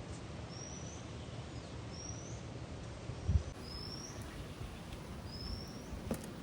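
A bird repeating a short, high, upward-sliding call about every one and a half seconds, four times, over a steady background hiss. A soft low thump comes about three seconds in.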